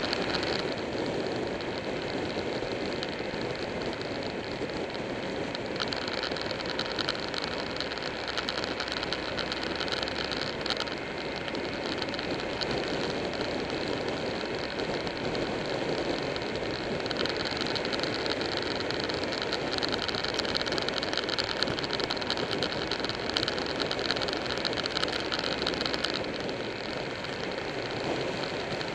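Buell 1125R sport bike riding at speed on a winding road: steady wind and road rush over the mic with the 1125 cc V-twin engine running underneath, swelling somewhat for several seconds in the second half.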